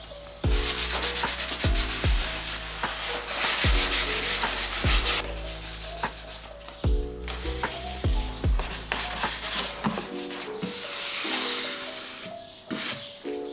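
Sandpaper rubbed by hand over the painted surface of a car fender plug, in quick back-and-forth strokes, with background music playing underneath.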